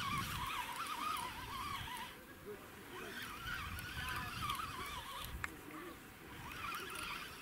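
A chorus of animal calls, wavering up and down in pitch in long stretches of a second or two with short gaps, over a low rumble of wind on the microphone, with a single sharp click a little past the middle.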